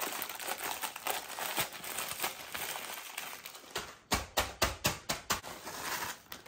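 Plastic freezer bag crinkling as frozen chopped peppers are squeezed and broken up inside it. From about four seconds in comes a quick run of sharp crackles and knocks, several a second, as the bag is shaken and the frozen pieces are tipped out.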